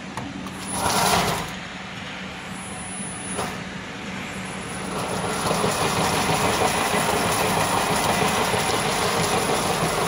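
Wire harness braiding machine running. About five seconds in its mechanical rattle and whir grows louder and busier and then holds steady, as its speed is turned up with the speed-adjust knob. A short, louder burst of noise comes about a second in.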